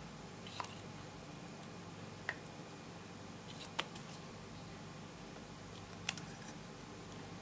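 Four sharp plastic clicks, a second or two apart, from lip gloss and lipstick tubes and caps being handled, over a faint steady low hum.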